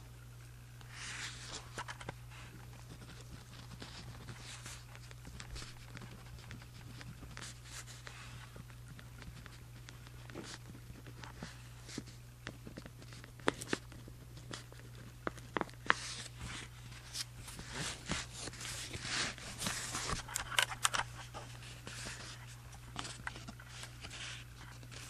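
Pen scratching across journal paper in short, irregular strokes, with sharp little taps as the pen meets the page. The writing gets busier and louder in the second half. A steady low hum runs underneath.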